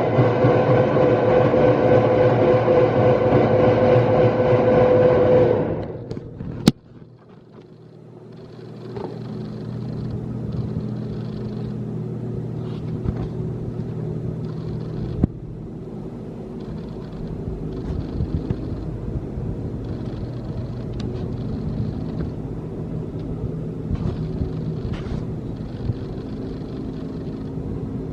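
Biro meat grinder's 15 HP three-phase electric motor running with a steady, strong hum, winding down about six seconds in, followed by a sharp click. A quieter, lower machine hum then builds up over a couple of seconds and runs steadily.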